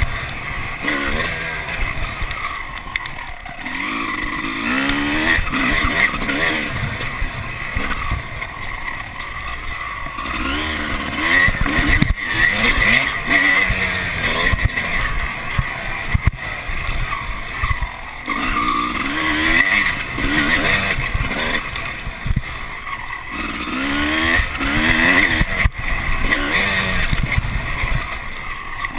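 Dirt bike engine being ridden hard, revving up and easing off several times as the rider works the throttle and gears, with wind buffeting and rumble on the chest-mounted camera's microphone.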